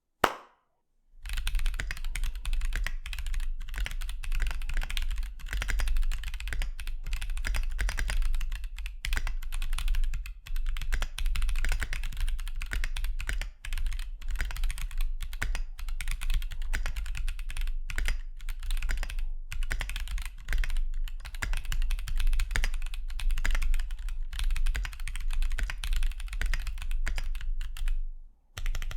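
Continuous fast typing on a Keychron Q2 aluminium mechanical keyboard with Gazzew Boba U4T tactile switches and PBT Cherry-profile keycaps. The keystrokes start about a second in, pause briefly near the end, and run over a steady low hum.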